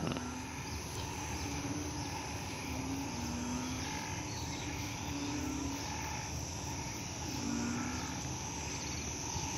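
A chorus of banded bullfrogs calling after rain: short, low, moo-like calls about half a second long, one every second or two from different frogs, over a steady background of other frogs and insects.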